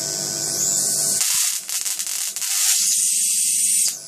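High-voltage arc striking onto the pins of an old cathode-ray tube. A steady electrical hum gives way about a second in to a loud hissing arc with sharp crackles, which settles into a steady sizzling hiss over a low buzz and breaks off briefly near the end.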